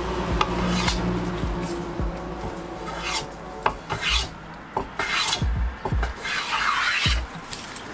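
Hand tool shaving the edge of a wooden board in a series of short scraping strokes, the longest stroke near the end.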